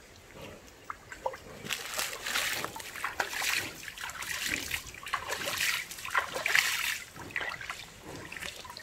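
Creek water splashing and sloshing in irregular bursts as a mini bull plunges into it and moves about. The splashing starts about two seconds in and keeps going until near the end.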